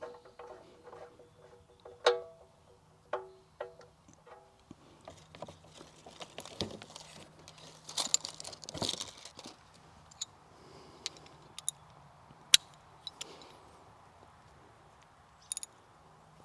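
A few plucked notes of background music in the first four seconds or so. After that come scattered sharp metallic clicks and knocks with some brief rustling, typical of tools and parts being handled.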